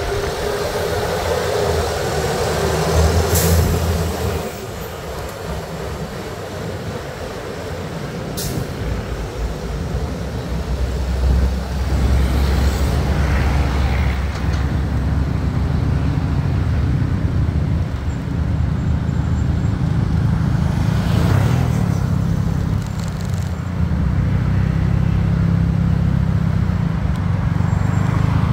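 Motorcycle riding through city traffic: a steady engine rumble under wind and road noise, with other vehicles around. There are two brief sharp hisses in the first ten seconds, and the engine grows louder from about eleven seconds in.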